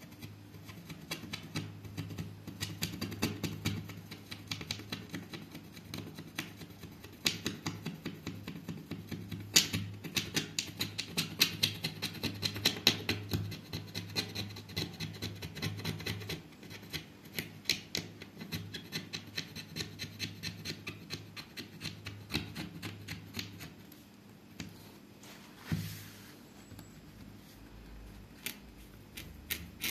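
Craft knife blade scraping and shaving along the cut edges of letters in a stencil sheet: a quick, irregular run of short scratchy strokes, with a brief pause and a single low knock near the end.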